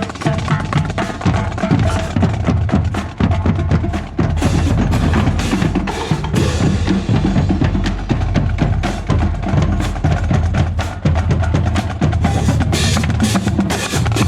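High school marching band drumline playing, with snare drums and bass drums beating in rapid, continuous strokes.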